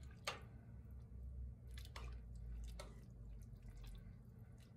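A long metal spoon stirring a thick stew of meat and vegetables in a full enamelled Dutch oven: wet squelching and sloshing, with a few clinks of the spoon against the pot.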